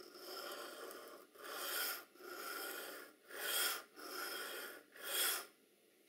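Double hollow ground oboe reed knife stroked back and forth across a 600-grit diamond sharpening stone under medium pressure: six scraping strokes of about a second each, every second stroke louder, stopping about five and a half seconds in. The strokes are raising a burr on the scraping side of the blade.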